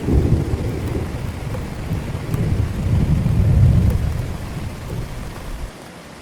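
A long rolling rumble of thunder over steady heavy rain, swelling to its loudest about three to four seconds in, then fading and cutting off abruptly near the end, leaving only the rain's hiss.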